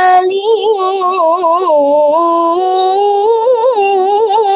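A child's voice chanting Quran recitation in melodic tilawah style, drawing out the words 'ghaniyyun ḥalīm' in one long unbroken phrase. It holds a steady note, dips lower about two seconds in, then climbs with quick wavering turns before settling back onto the held note.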